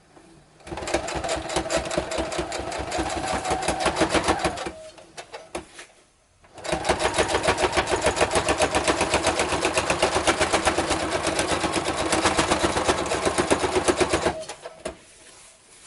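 Sewing machine stitching at a rapid, even pace in two runs, with a short pause about six seconds in and a stop near the end. It is sewing a second line of stitches along a corded seam.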